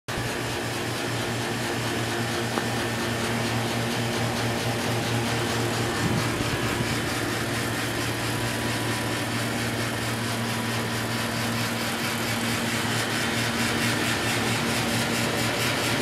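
Carrier Infinity central air conditioner outdoor unit running steadily: a constant low hum over an even rush of air.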